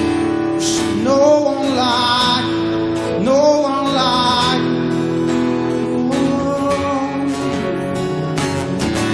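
Live worship music: strummed acoustic guitar chords, with two long sung notes that bend in pitch over them.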